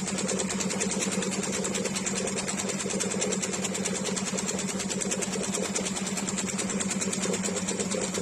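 Singer 2630C electric sewing machine running at a steady speed while stitching: a steady motor hum under a fast, even clatter of the needle mechanism.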